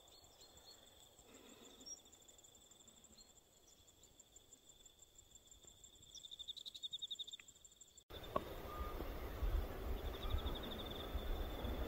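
Insects trilling: a faint, high, steady pulsing chirr that swells for about a second some six seconds in. After an abrupt cut about eight seconds in, a soft rustling noise with a few light clicks runs under the trill.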